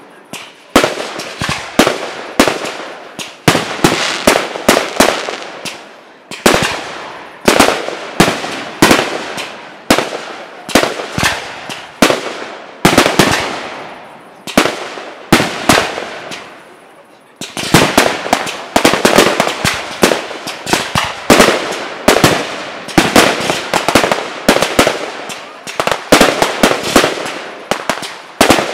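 Aerial fireworks going off in quick succession, each sharp bang trailing off. There is a short lull a little past halfway, then a denser barrage of rapid reports.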